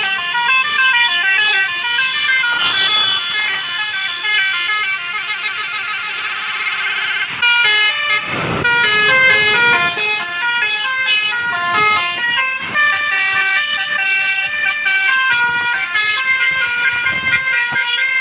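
Basuri multi-tone telolet bus air horn with roof-mounted trumpets, playing a fast melody of quickly changing notes. A short rush of noise cuts in about eight seconds in.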